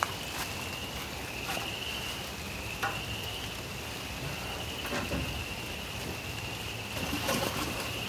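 Steady light rain with a continuous high-pitched trilling chorus of frogs behind it. Scattered close drops tick sharply now and then.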